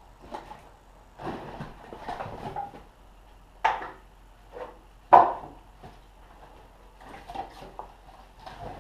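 Split birch firewood knocking and clattering as pieces are picked up and stacked by hand. There is a series of separate sharp knocks with short clusters of clatter between them, the loudest about five seconds in.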